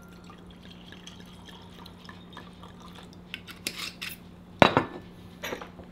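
Sake poured from a glass bottle into a wine glass: a faint trickle, then a few light glassy clinks and knocks in the second half, the sharpest one about two thirds of the way in. A steady low hum runs underneath.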